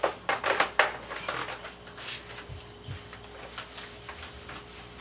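Adhesive vinyl sheet crinkling and rustling as it is pressed and smoothed onto a tiled wall by hand and with a cloth, with a cluster of sharp crinkles in the first second and a half, then quieter rubbing.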